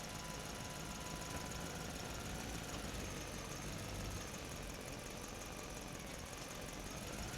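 Truck engine running at low speed inside a parking structure: a steady engine sound with a faint whine that drifts slightly up and down in pitch.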